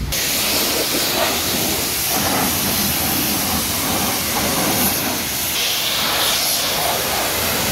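High-pressure washer jet spraying water onto a car's wheel and bodywork, rinsing off the foam: a loud, steady hiss that cuts in suddenly at the start.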